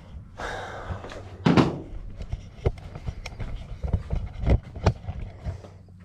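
Handling and moving-about noise: scattered knocks and clicks, the loudest a thump about a second and a half in, over a steady low hum.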